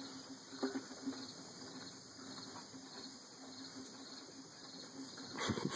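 Steady high chirring of insects under faint scuffling as Boston terrier puppies wrestle over a cardboard tube on a wooden deck, with a few soft knocks under a second in and a louder burst near the end.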